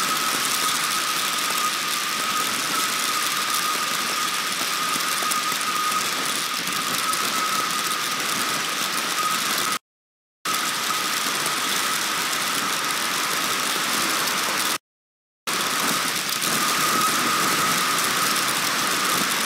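Heavy storm rain pouring onto the outdoor stork-nest webcam and its microphone, a loud steady hiss with a steady high tone running under it. The sound cuts out completely twice for about half a second.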